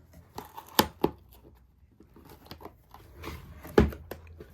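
Cardboard shipping box being pried and ripped open by hand: scraping and tearing of cardboard and tape, with a few sharp knocks, the loudest near the end.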